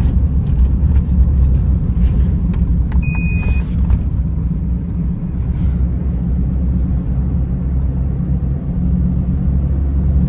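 Steady low rumble of a car driving at speed, heard from inside the cabin. About three seconds in, a short electronic beep from the taxi's dashboard fare meter as it is switched on and starts the fare.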